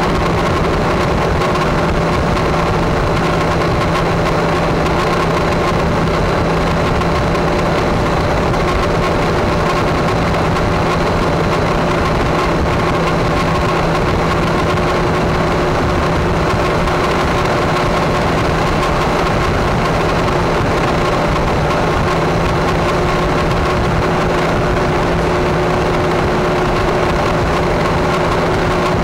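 Car cruising at steady highway speed: a constant engine drone under loud, even road and wind noise, with no change in pace.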